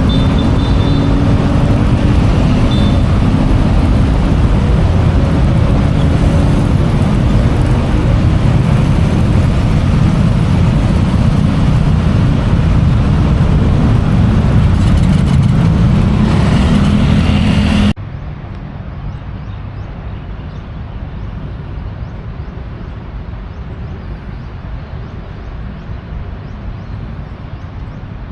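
A motor vehicle's engine running loud and close, steady and low-pitched. About eighteen seconds in it cuts abruptly to a quieter, steady traffic noise.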